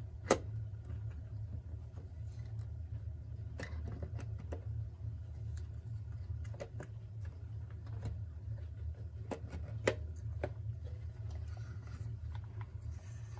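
Scattered clicks and light knocks of a clock's metal movement and bezel being worked into a wooden case, the sharpest just after the start and another near ten seconds in, over a steady low hum.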